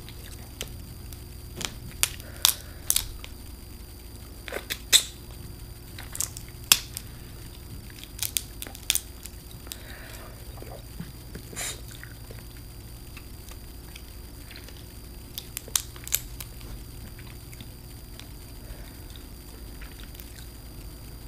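Close-up eating of boiled seafood: irregular sharp cracks and clicks of shells being broken and chewed, in clusters through the first half and again briefly later on.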